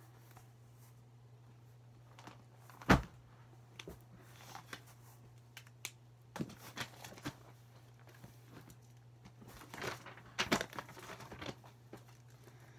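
Paper and sketchbook pages being handled: short bursts of rustling and crinkling with small clicks, several times. There is a sharp knock about three seconds in, the loudest sound.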